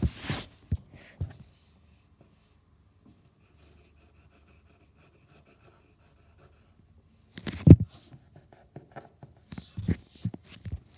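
Pencil drawing on paper: short scratching and tapping strokes with a few sharp knocks, the loudest right at the start and another about seven and a half seconds in, and a quiet stretch in the middle.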